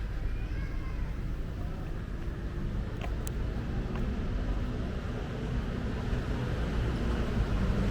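Street traffic: a motor vehicle's engine runs as a low, steady rumble that grows louder toward the end. A single short click comes a little past three seconds in.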